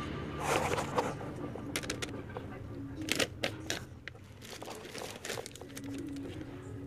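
Plastic bags of hamster food crinkling and rustling as a hand rummages through them and scoops dry seed-and-pellet mix, heard as an irregular run of short crackles and clicks.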